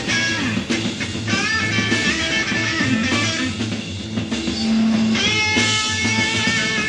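Rock music with electric guitar: guitar notes bending in pitch over a steady bass line and drums.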